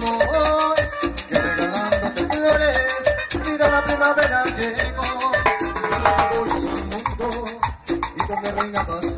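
A live band playing upbeat Latin dance music: keyboard over a drum kit and timbales, with a fast, steady percussion beat.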